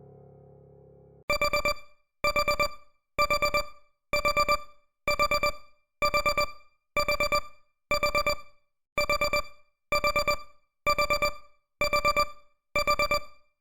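Countdown timer alarm: a simple electronic beep sounding in groups of four quick beeps, about one group a second, repeating steadily. It starts about a second in, as the last of the background song fades out.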